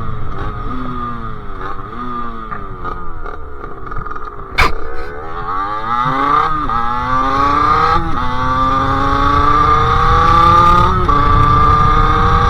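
Sherco SM-R 50's 50cc two-stroke engine with a KRM exhaust. It slows down through several downshifts, each one with a short jump in revs, then gives a single sharp crack about four and a half seconds in. After that it accelerates hard, shifting up twice, and the revs climb steadily near the end.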